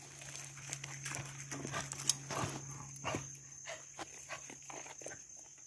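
Goats eating chopped alfalfa hay from a plastic tub up close: chewing and rustling of the stems, heard as many small irregular crunches and crackles.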